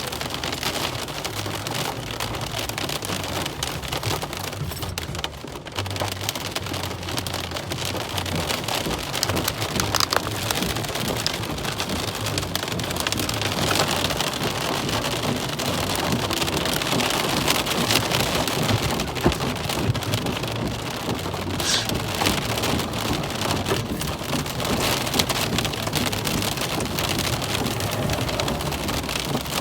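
Heavy thunderstorm rain falling in a steady, dense hiss.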